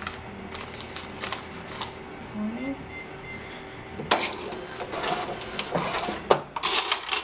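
SAM4S SPS-2000 touch-screen cash register ringing up a cash sale: three short key beeps, then from about four seconds in a burst of mechanical noise as the receipt printer runs and the cash drawer springs open, with a sharp clatter near the end.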